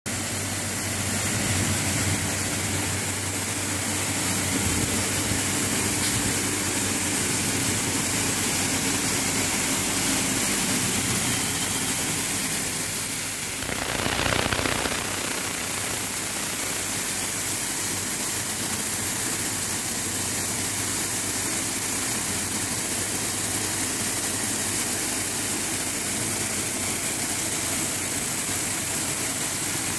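Electric-motor-driven wheat cleaning machine running steadily: a continuous machine hum. A short, louder rush of noise comes about fourteen seconds in.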